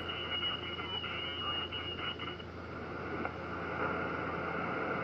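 Ham radio transceiver's receiver audio on the 10 m band in upper sideband: a steady hiss of band noise, with a high steady whistle over about the first two and a half seconds.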